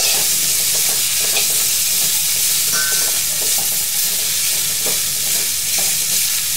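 Cauliflower and broccoli florets sizzling in oil in a karahi, stirred with a spatula that scrapes against the pan with short strokes over a steady hiss.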